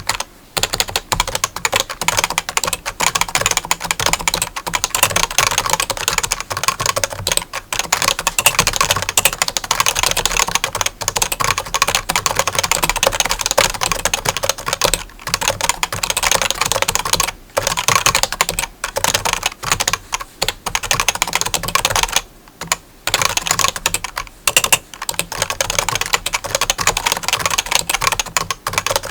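Fast, continuous typing on a keyboard: a dense run of key clicks broken by a few brief pauses.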